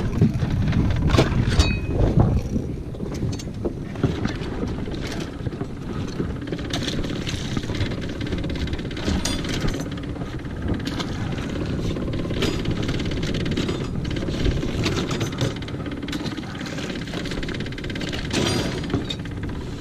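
Wind buffeting the microphone in a steady low rumble, with scattered sharp clicks and rattles as Dungeness crabs are handled in a wire crab pot.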